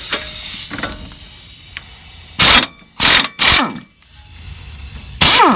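Pneumatic wrench loosening the bolts that hold the steering knuckle to the strut. It runs in four short, loud bursts, each winding down in pitch as the trigger is released.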